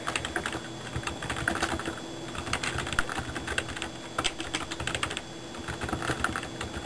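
Typing on a keyboard: irregular quick runs of key clicks with short pauses between them, entering text for a talking dictionary to speak aloud. A faint steady hum sits underneath.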